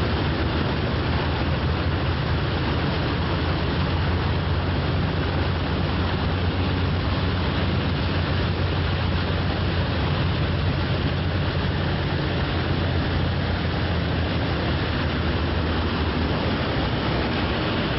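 Twin Evinrude 150 two-stroke outboard motors running steadily at speed: a constant low drone under a heavy rush of wind and water.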